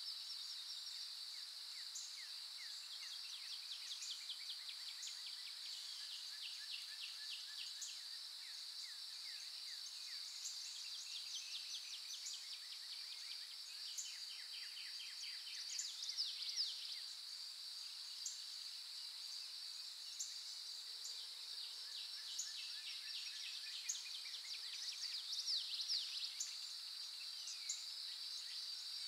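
Outdoor ambience: a steady high-pitched drone of insects, with birds chirping and trilling over it. The bird calls come in clusters and are louder around the middle and near the end.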